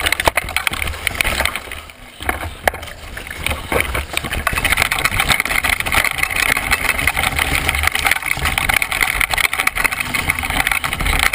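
Downhill mountain bike rolling fast over a rocky trail, heard close up from the handlebars: a steady rumble of wind and rolling noise with constant clattering and rattling as the tyres and frame hit stones. It gets louder about four seconds in as the bike picks up speed.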